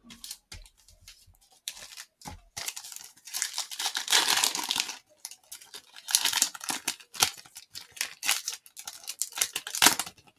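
Plastic trading-card pack wrapper being torn open and crinkled in the hands, with bursts of crackly rustling.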